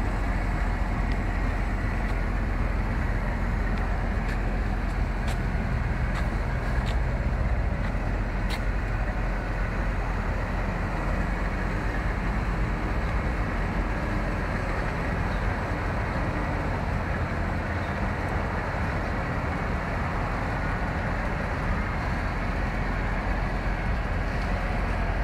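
Mercedes-Benz SL63 AMG's V8 idling steadily, an even low drone with no revving.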